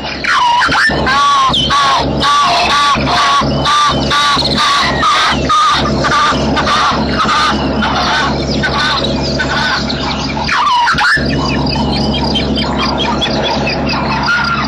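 Wild birds calling in a long run of quick, repeated arched notes, several voices overlapping, with a short break about three-quarters of the way through before the calls resume. A steady low hum runs underneath.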